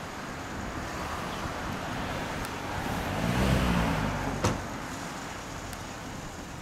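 A motor vehicle drives past over steady traffic noise, its engine swelling to a peak about three and a half seconds in and then fading. A single sharp click follows.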